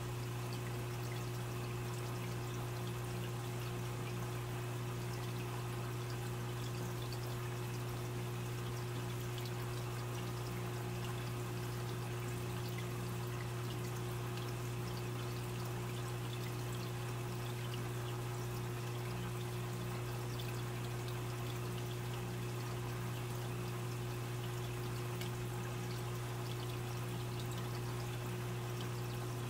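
Aquarium filter running: water trickling and bubbling steadily over a constant low hum.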